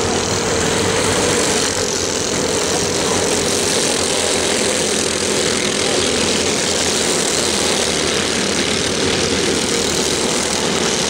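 Several racing go-karts lapping together, their small engines running at speed in a steady, overlapping drone.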